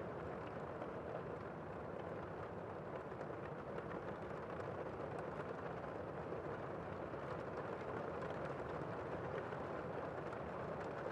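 Heavy rain heard from indoors, a steady muffled wash of noise with faint scattered ticks of drops.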